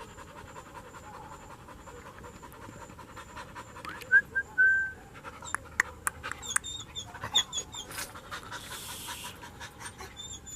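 A dog panting steadily. Short high chirping calls come and go, and a brief loud whistled note sounds about four seconds in.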